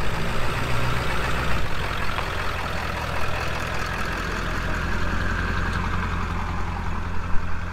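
A motor vehicle's engine running steadily, with a low, even hum.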